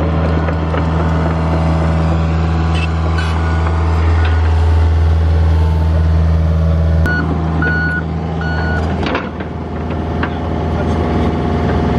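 John Deere 50G mini excavator's diesel engine running steadily, with three short beeps of its travel alarm about seven to nine seconds in.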